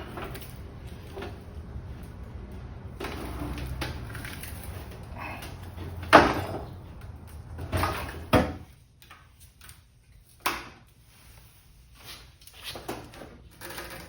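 Sheet steel clanking and knocking as drawer-box blanks are folded on a hand flange brake, a handful of sharp metallic bangs with the loudest about six seconds in. Under the first part runs a low hum that stops about eight seconds in.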